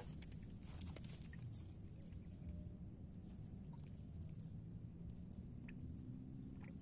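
Quiet outdoor ambience: a low steady rumble with scattered faint, short high chirps and ticks, and a single sharp click at the very start.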